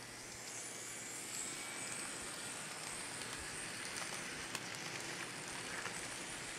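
Wheels of an N scale coal train's hopper cars rolling along the model track: a steady hiss with a high whine, swelling in the first second, with a few sharp clicks in the second half.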